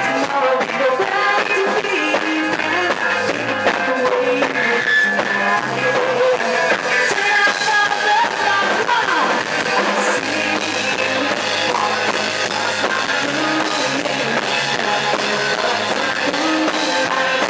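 A rock band playing live through a PA: electric guitar over a drum kit.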